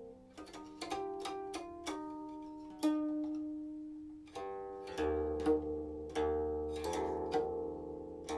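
Silk-string guqin played solo: single plucked notes and pairs of notes, each with a sharp attack and a long, slowly fading ring, roughly one to two plucks a second.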